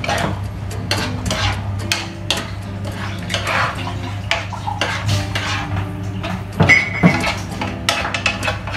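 Metal spatula scraping and clinking against a frying pan while pieces of pork are stirred, with two louder knocks on the pan about seven seconds in.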